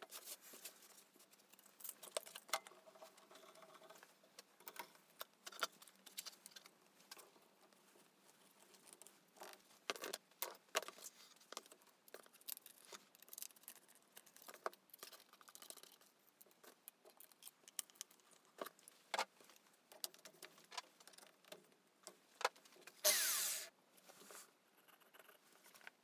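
Quiet handling sounds as hands work a green sanding disc onto the backing pad in a drill chuck: scattered light taps, clicks and rustles. One brief, louder rasp comes near the end.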